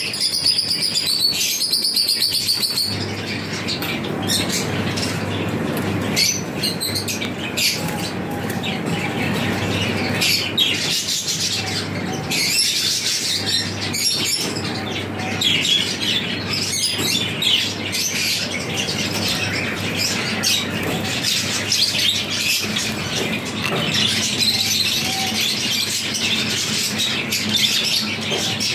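A flock of caged finches chirping, with many short calls overlapping throughout, over a low steady hum.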